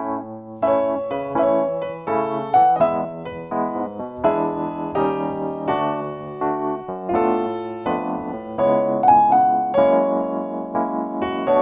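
Instrumental film-soundtrack music led by piano, with a melody over chords and notes struck one after another in a flowing rhythm.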